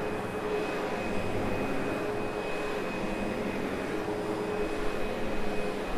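Sebo X8 upright vacuum cleaner running steadily while vacuuming carpet: a constant motor hum and a thin high whine over the rush of air.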